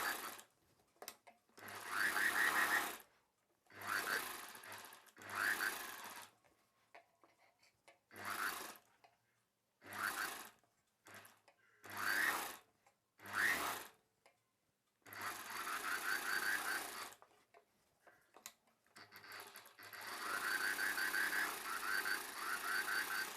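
Electric sewing machine stitching a sleeve seam in short stop-start runs of one to two seconds, its motor whine rising as it speeds up each time, with a longer run of several seconds near the end.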